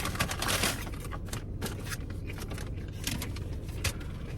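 Paper takeout bag and wrapper rustling and crinkling in irregular crackles as food is handled and unpacked, over a low steady hum.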